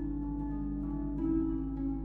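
Background music: sustained plucked and chiming notes over a low bass, the chord changing about every second and a quarter.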